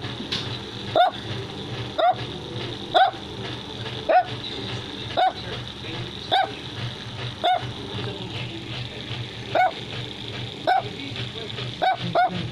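Chinese Crested dog barking in short, evenly spaced single barks, about one a second, around ten in all.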